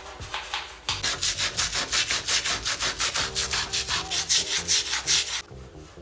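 Stiff-bristled scrubbing brush rubbing quickly back and forth over the moldy silicone seal at the bathtub-to-tile joint, about six strokes a second. The scrubbing grows louder about a second in and cuts off suddenly near the end.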